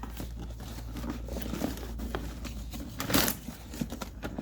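Packaging rustling and crinkling with small clicks and knocks as the new trolley jack and its box are handled, with a louder rustle about three seconds in, over a steady low hum.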